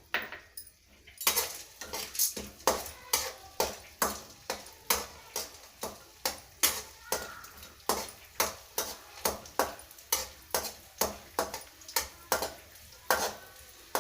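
Edible gum (gond) being roasted in ghee in a pan, stirred with regular strokes that knock and scrape against the pan about two to three times a second, over a faint frying sound.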